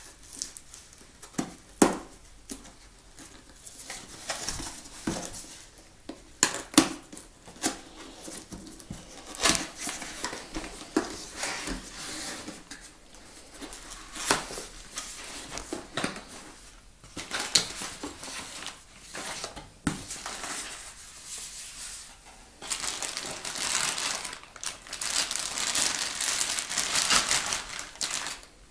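A cardboard box being handled and opened: scattered taps, knocks and scrapes of cardboard, then several seconds of plastic bag crinkling near the end.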